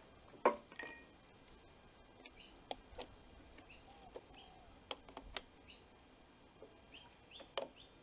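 Light clicks and taps of a long hex jet tool against a carburetor body as the jet is fitted, the loudest about half a second in. A small bird chirps several times in the background, short falling chirps in pairs.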